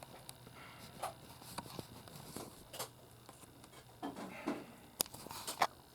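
Plastic Rubik's Cube being twisted by hand: irregular clicks and short scrapes as the layers turn, the sharpest clicks about five seconds in.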